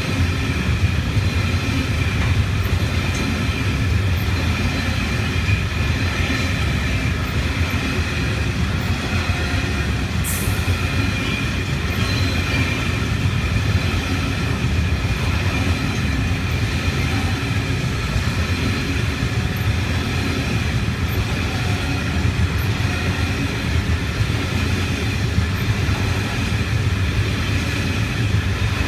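Freight train's container wagons rolling past on steel rails: a steady low rumble of wheels on track, with a thin, steady high-pitched wheel squeal over it and a brief sharp squeak about ten seconds in.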